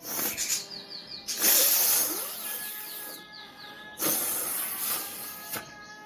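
A person with a heavy head cold blowing her nose hard three times: a short blow at the start, then two long, forceful blows of about a second and a half each.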